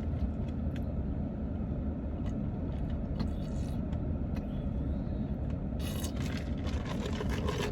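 Steady low rumble of a car heard from inside the cabin, with a few faint clicks and a rustle near the end.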